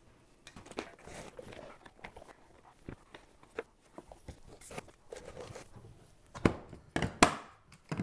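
Photography lighting gear being packed into a padded hard case: rustling of nylon bags and padding with scattered knocks of equipment being set down. The knocks grow louder and more frequent near the end.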